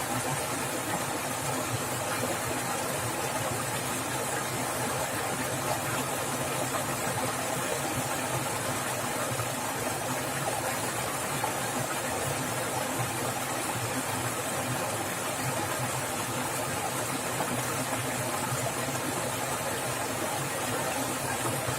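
Swift running water splashing, a steady, unbroken rush.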